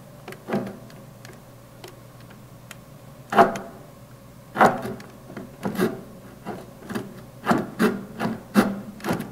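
Saw blade drawn back and forth by hand against wood with the saw's motor off, making irregular rasping scrapes. They are faint at first, grow louder after about three seconds, then come quicker and closer together.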